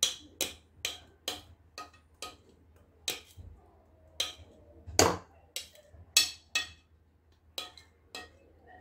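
Wire whisk knocking and scraping against a glass mixing bowl while cake batter is cleared out of it: a quick, uneven series of sharp clinks, roughly two a second.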